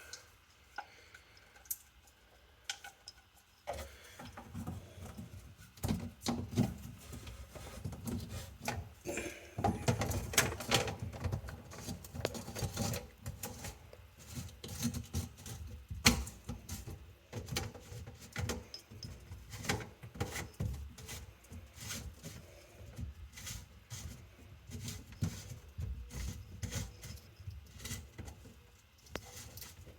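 Hands working plastic sink-drain parts and fittings: irregular clicks, taps and knocks with low handling rumble, starting a few seconds in.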